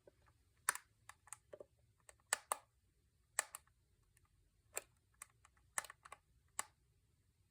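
Plastic time-setting buttons on a Spartus 1102 digital alarm clock being pressed, making sharp clicks at uneven intervals, some in quick pairs, as the time is set.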